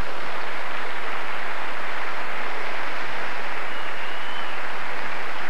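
Audience applauding steadily after a stand-up punchline.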